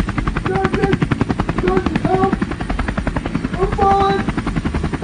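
Sikorsky UH-60 Black Hawk helicopter hovering low, its four-bladed main rotor giving a fast, steady beating. Short shouts cut through it about half a second, two seconds and four seconds in.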